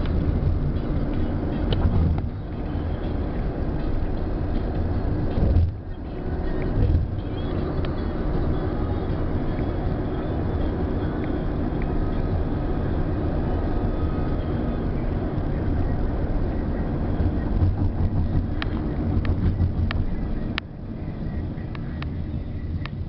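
Road and engine noise of a car driving along, a steady low rumble, with a few brief clicks near the end.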